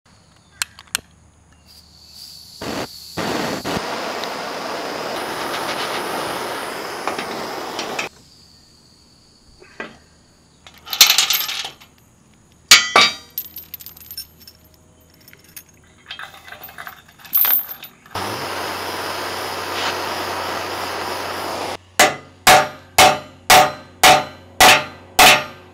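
Metal clanks and chain clinks as a safety chain is hooked onto a trailer tongue, with two stretches of steady hiss. Near the end comes a steady run of hammer blows on metal, about two or three a second.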